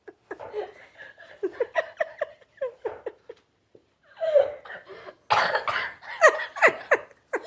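A person laughing in wheezy, breathy gasps and coughs, the laugh hoarse from illness. It grows loudest about five seconds in.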